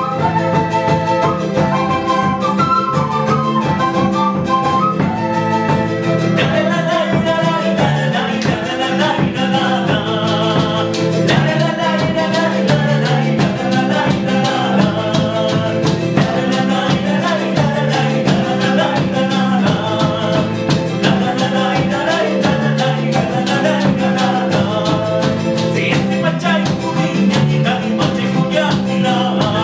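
Andean folk ensemble playing: a bamboo quena carries the melody over strummed charango and guitar and an electric bass line. The texture fills out about six seconds in.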